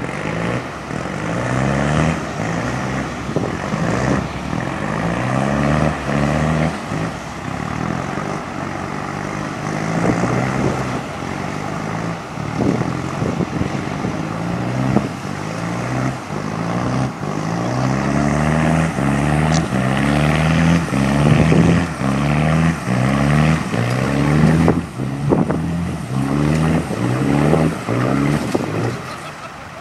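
Toyota Hilux engine revving up and dropping back over and over, about once a second, under a steady rushing noise, as it drives through a river.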